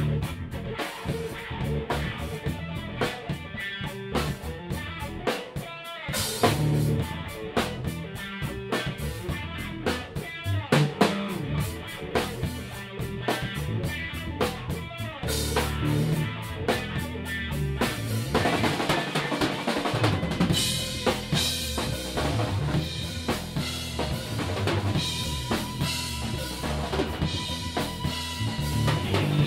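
Live rock band playing an instrumental passage on drum kit, electric bass and electric guitar, with no vocals. The playing gets brighter and busier about two-thirds of the way through, and a steady high note is held for a few seconds near the end.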